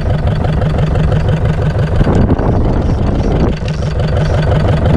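Diesel engine of a small fishing boat running at low speed, a steady low, pulsing throb.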